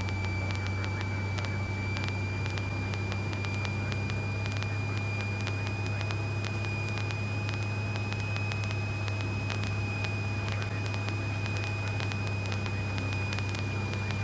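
Steady drone of a 1963 Cessna 172E's Continental O-300-D six-cylinder engine and propeller, heard inside the cabin on final approach. A constant high whine and many faint clicks run over it.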